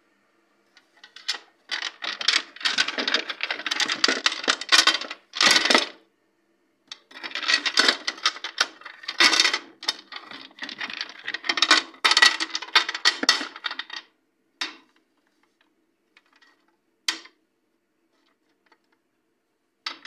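Rapid clinking and rattling, like small hard objects shaken or handled together, in two long spells of several seconds each. A few single clicks follow near the end.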